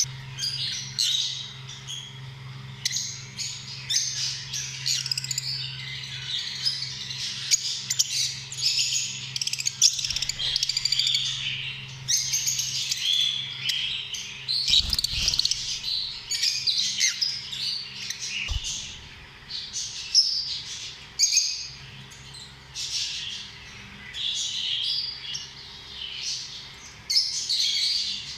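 Lovebirds (Agapornis) chirping and squawking without pause, many quick high calls overlapping.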